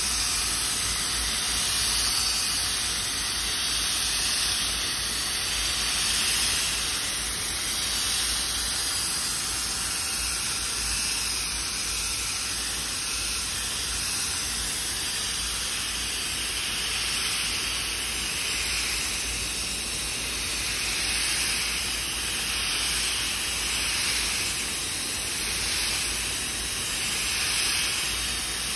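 Pneumatic mini polisher running steadily while buffing fresh paint, its compressed air hissing; the hiss swells and eases slightly every couple of seconds.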